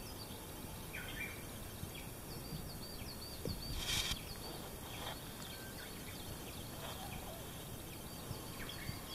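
Faint birdsong: a small bird repeating a quick run of short high chirps, heard twice, over a quiet outdoor background. There is a brief rustle about four seconds in.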